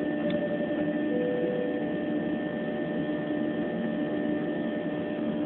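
Steady cabin noise of a Ryanair Boeing 737 in the climb: a continuous engine and airflow drone with a steady hum.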